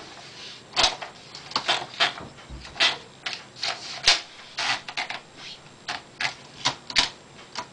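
Speedriter Chevron portable manual typewriter being typed on: keys striking the platen in an uneven run of sharp clacks, about two to three a second.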